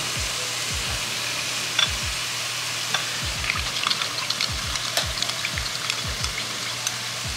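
Boiling water poured from a kettle into a ceramic bowl, then a metal spoon stirring and clinking against the bowl a few seconds in, over a steady hiss.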